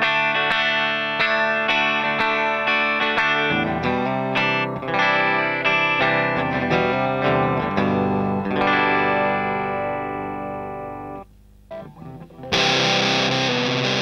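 Electric guitar played clean with the effect bypassed, picked chords and notes ringing for about eleven seconds. After a short gap, near the end, the guitar comes back distorted through a Tonebender MkII clone fuzz pedal set to its lowest gain, bias in the middle and attack at minimum.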